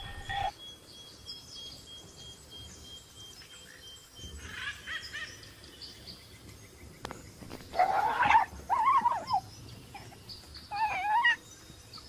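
Animal cries: a few short, wavering yelping calls with quiet stretches between, the loudest about eight seconds in.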